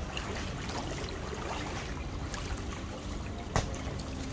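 Swimming-pool water sloshing and splashing as people move through it, with a single sharp slap about three and a half seconds in.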